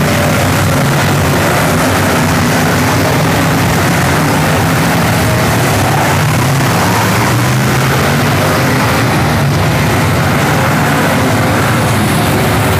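Race car engines running loud and steady during a figure-eight race.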